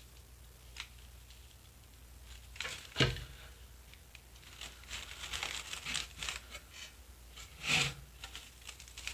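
Rustling and crinkling of artificial silk flowers and plastic leaves being handled and pressed onto a cardboard box, loudest just before the end. A short knock about three seconds in as a hot glue gun is set down on the table.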